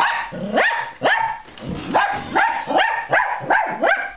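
Dachshund barking over and over, about two barks a second, asking to be let outside.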